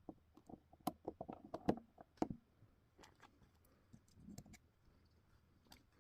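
Faint clicks and light metallic taps of a small screwdriver working the tiny screws and parts of a Dunhill Rollagas lighter. They come quickly for the first two seconds or so, then only now and then.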